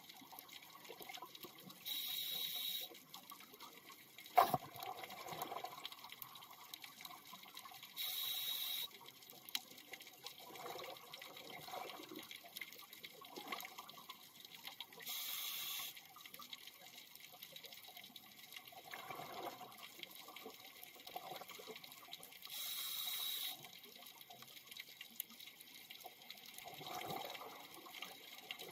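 A scuba diver breathing through a regulator underwater. A short hiss of inhalation comes four times, about every six to seven seconds, with bubbling exhalations in between. There is one sharp click about four seconds in.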